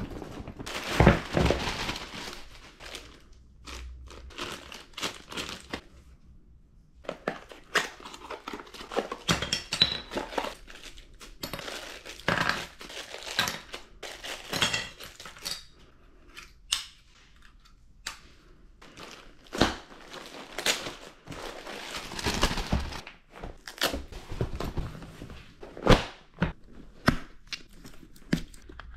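Clear plastic packaging bags crinkling and rustling while being handled and opened, with irregular clicks and knocks of small hard plastic parts set down on a stone tabletop.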